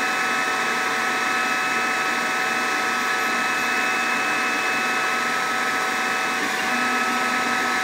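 Laser engraver on a CNC machine running a rotary-axis engraving: a steady whir with a high whine from the laser module's fan and the stepper motors, the whine breaking off briefly a little after six seconds.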